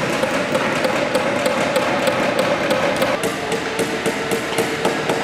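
Several hammers driving nails into wood at once, giving many irregular, overlapping taps, with a steady hum underneath that drops slightly in pitch about three seconds in.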